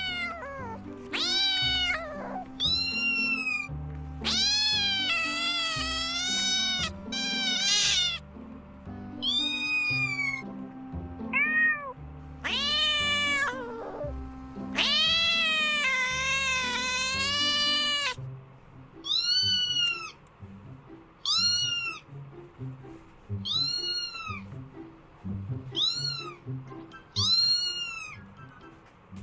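A cat meowing again and again in high-pitched calls: a string of drawn-out meows, some long, then a run of about ten short meows, one a second, in the last third. Background music plays underneath.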